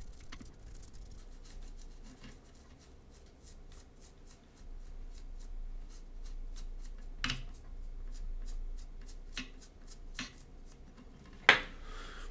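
Small handling noises of hands and tools working on a circuit board: light rubbing and irregular faint clicks, with two sharper knocks, about seven seconds in and near the end.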